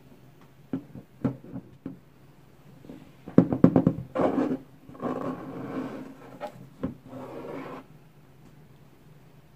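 Hands handling a rigid cardboard Louis Vuitton box. There are a few light taps, then a quick run of knocks about three seconds in, then stretches of scraping and rubbing of fingers and cardboard as the box is slid and lifted.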